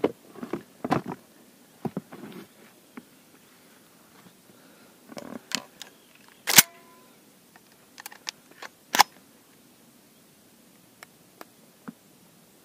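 Scattered handling clicks and knocks on a head-mounted camera's microphone. The loudest two come about halfway through and a couple of seconds later, with a few smaller ticks near the end.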